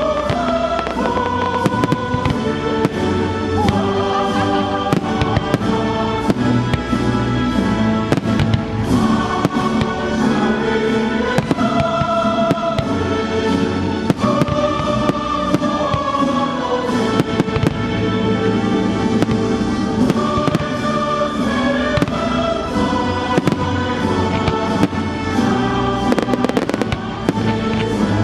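Fireworks going off in many sharp bangs and crackles over loud music of held, sustained notes, with a dense flurry of crackles near the end.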